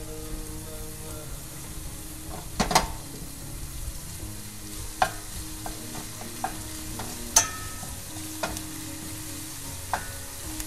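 Chopped green onions sizzling in oil in a stainless steel frying pan, stirred with a wooden spatula that knocks and scrapes against the pan about five times.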